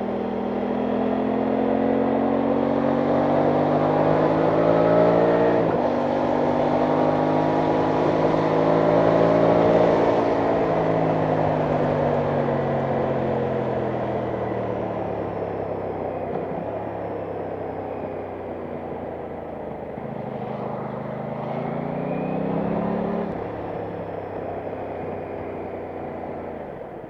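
Aprilia Tuono 660 Factory's parallel-twin engine accelerating through the gears: the pitch climbs for about six seconds, drops sharply at an upshift, climbs again, then falls slowly as the bike slows. Near the end a short climb ends in another sharp drop, with wind noise underneath.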